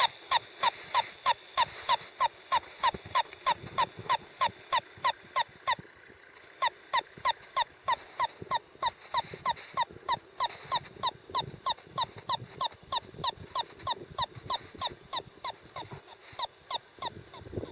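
Handheld receiver beeping rapidly, about four short chirps a second, as it tracks the net jigger moving under the ice. The chirps break off briefly about six seconds in and grow fainter near the end.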